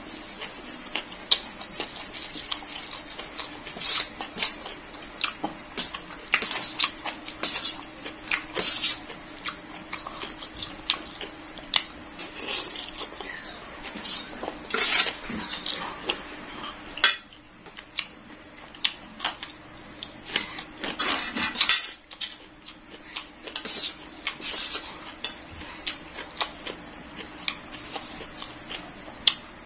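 Fork and spoon clinking and scraping on a stainless steel tray while rice noodles are eaten, with occasional slurps. A steady high chirring of crickets runs underneath.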